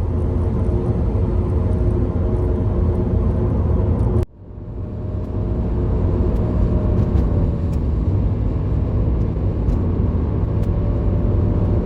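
A car being driven on a road: steady low rumble of engine and tyres. It drops out suddenly about four seconds in and builds back up.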